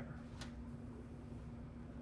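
Quiet room tone with a steady low hum and one faint click about half a second in.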